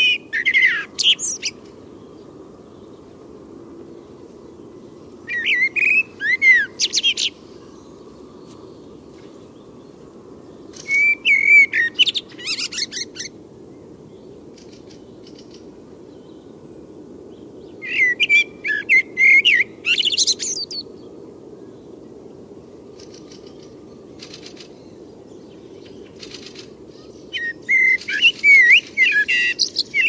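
Male common blackbird singing: five separate phrases several seconds apart. Each phrase opens with low, flute-like whistles and ends in a high, squeaky twitter, over a steady low background rumble.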